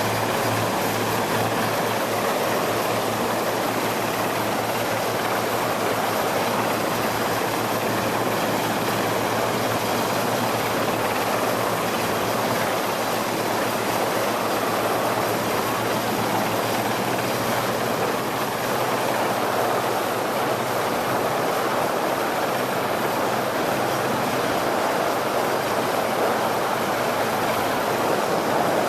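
Steady engine drone and rushing wind and water noise of a 7 m RIB under way, which may carry a Coastguard helicopter's rotor noise. A low hum is strongest in the first couple of seconds, then fades into the rush.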